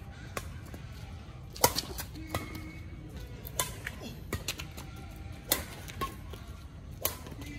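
Badminton rackets striking a shuttlecock in a doubles rally: a string of sharp smacks about every half-second to second, the loudest about one and a half seconds in, over a steady low background rumble.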